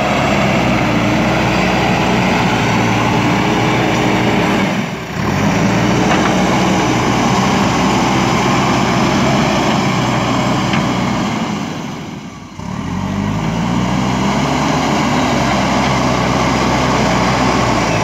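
JCB 3DX Super backhoe loader's diesel engine working as the machine pushes soil with its front loader bucket. The engine note sags briefly about five seconds in and again around twelve seconds, then climbs back up each time.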